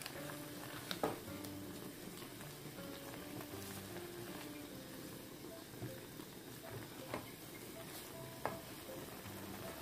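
Instant noodle soup simmering in a pot while a silicone spatula stirs it, a steady bubbling hiss with a few sharp knocks of the spatula against the pot, the loudest about a second in and two more near the end.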